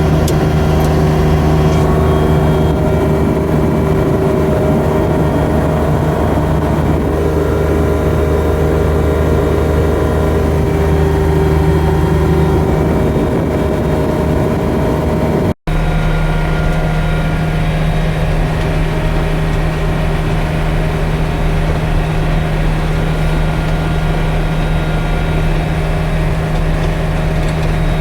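John Deere 1585 front-mount tractor's diesel engine running steadily at constant speed, with a momentary break in the sound about halfway through.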